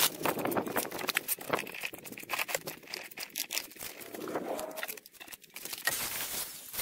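Footsteps crunching on gravel and loose stone chips, with irregular sharp clicks and knocks of stone pieces.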